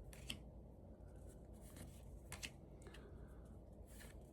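Faint handling of Magic: The Gathering cards being flipped through one by one: soft sliding with a handful of short clicks as cards are snapped into place.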